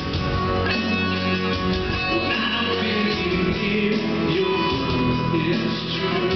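A live band playing, with a strummed acoustic guitar to the fore.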